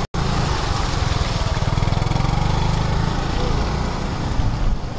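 Motor scooter's small engine running steadily as it rides through floodwater, with the water churning around the wheels. The sound drops out for a split second at the very start.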